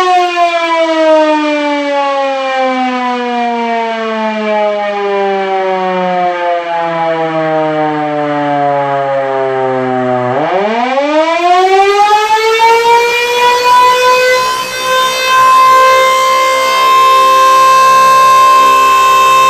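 Motor-driven civil defence siren sounding in a test alarm. Its tone falls slowly for about ten seconds as it winds down, then winds quickly back up over a few seconds and holds a steady, louder high tone.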